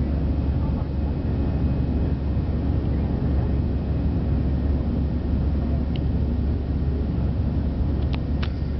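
Jet airliner cabin noise during the climb after takeoff: the engines and rushing air make a steady roar with a heavy low rumble. A few short clicks sound near the end.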